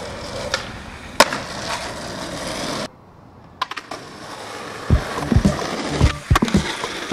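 Skateboard wheels rolling on rough pavement, with a sharp tail pop about a second in. After a brief drop-out, the rolling resumes and ends in a cluster of board snaps and heavy thuds from tricks and landings.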